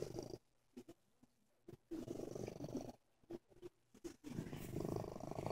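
Gray-and-white domestic cat purring in three bouts, each about a second long with short gaps between, a purr its owner thinks sounds sick.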